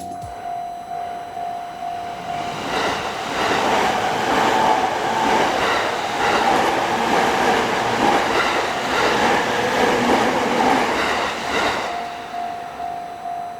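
A Japanese level crossing's warning bell ringing steadily. An electric commuter train on the JR Saikyo Line then passes from about three seconds in to about twelve, its wheels clattering over the rail joints and drowning the bell. The bell is heard ringing again near the end.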